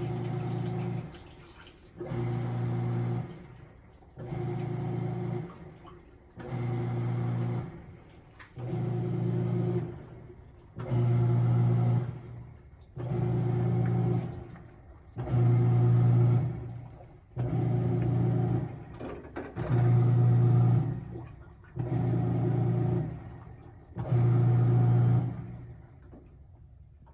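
Samsung top-load washer's motor driving the wash plate in short strokes about every two seconds, a humming run with water sloshing each time, about a dozen strokes before it stops near the end.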